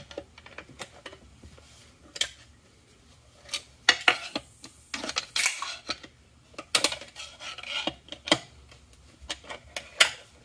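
Scattered metallic clicks, clinks and scrapes of a large steel snap ring being worked out of its groove inside a TH350 transmission case, with a longer scrape about four seconds in.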